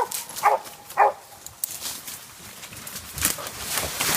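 Hog-hunting dog barking, three short barks in the first second or so, then a rush of noise with scattered clicks that grows louder toward the end.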